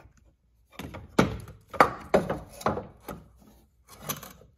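Irregular metal knocks and clunks of the engine mount bracket being shifted and seated against a new ECS Tuning engine mount, about a dozen sharp hits starting about a second in.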